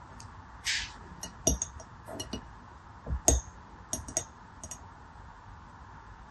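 Water beads clicking and clinking against one another and the clear ribbed tray as fingers pick through them and handle single beads, a scatter of light taps and a few harder knocks, the loudest just after three seconds. A short hiss about a second in.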